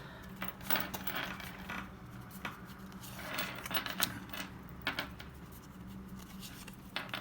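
Pokémon booster packs and trading cards being handled: irregular small clicks, taps and crinkly rustles of foil wrappers and card stock.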